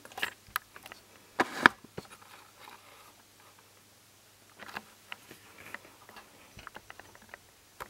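Scattered small clicks and scrapes of hands handling the thin fluorescent backlight lamps and their plastic clip holders inside an LCD TV, with a louder scraping rustle about one and a half seconds in.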